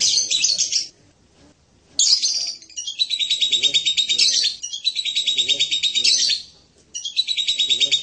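Blue-crowned hanging parrot (serindit) calling: bursts of rapid, high, thin chattering notes. A short burst comes at the start, then long running trills from about two seconds in, broken by a brief pause near six seconds.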